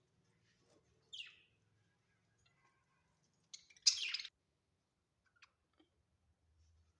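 Budgerigars calling: a short chirp falling in pitch about a second in, then a louder, scratchy burst of chatter around four seconds in, followed by a few faint clicks.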